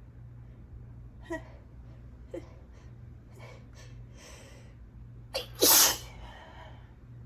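A person's allergy sneeze. Several short catching inhales build up over about four seconds, then one loud sneeze comes about five and a half seconds in, followed by a brief breathy exhale.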